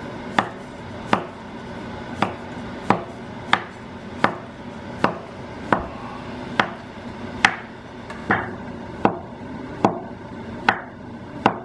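Steel cleaver chopping through a rolled log of floured dough onto a wooden cutting board, cutting thick khao piak sen noodles: a sharp knock of the blade on the board about one and a half times a second at a steady pace.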